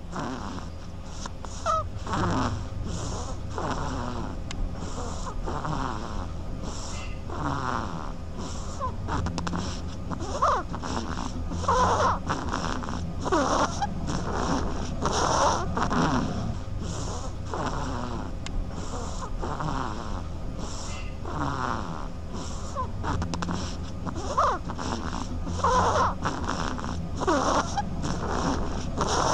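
Baby duckling snoring in its sleep: a long run of quick, short snoring breaths, a little more than one a second.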